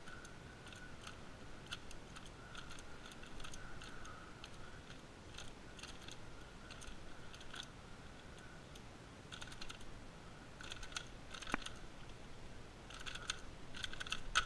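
Moyu magnetic skewb being turned fast in a timed speedsolve: quick clusters of light plastic clicks and clacks from the turns, with a louder click near the end as the solve finishes.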